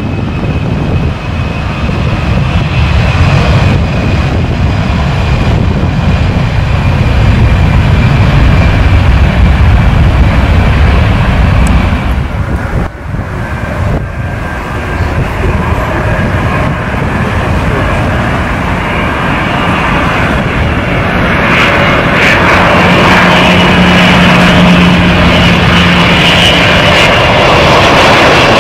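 Airliner engines running loudly as an aircraft passes: a deep rumble at first, dipping briefly about halfway, then a rising engine whine that builds toward the end.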